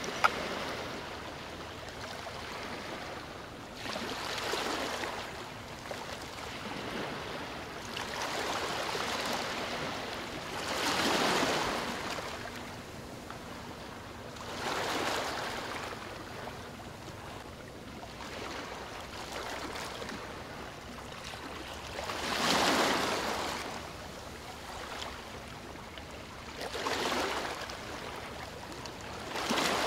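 Rushing water that swells and fades in slow surges every three to four seconds, in the manner of ocean waves washing in.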